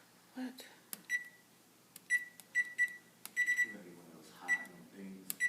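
Electric stove's digital control panel beeping as its buttons are pressed: about eight short, high beeps, some in quick runs, each with a light click of the key.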